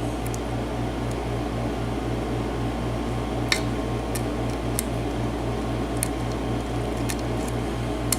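Light metallic ticks, about six of them, as a lock pick and tension wrench work the pin stacks of a mortise lock cylinder, trying to set the last pin. They sit over a steady mechanical hum that pulses about four times a second.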